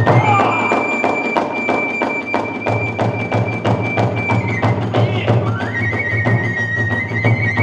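Kagura hayashi in the fast hachichōshi style: a bamboo flute holds one long high note, then after a short break slides up into another, over quick, even drum beats and small hand cymbals.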